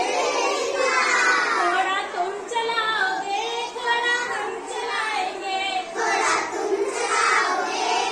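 A group of children singing a counting rhyme together.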